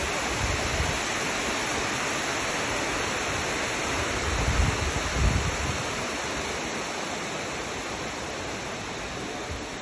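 Water rushing down a concrete reservoir spillway channel, a steady white-water rush that grows a little fainter over the second half. There are a couple of low thumps about halfway through.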